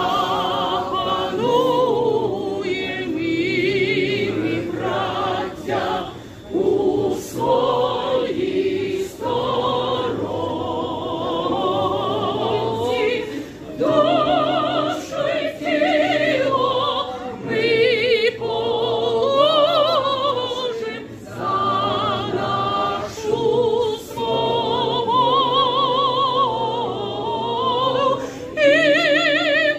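A crowd singing a song together in a metro station, with a strong voice carrying the melody with wide vibrato. The singing comes in phrases with short breaths between them.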